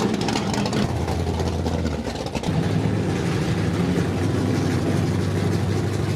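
Late model race car V8 engines running at low speed, a steady low drone whose pitch pattern changes about two seconds in.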